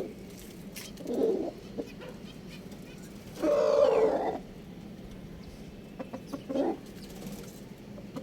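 Rooster calling three times in short bursts; the middle call, about three and a half seconds in and lasting about a second, is the loudest.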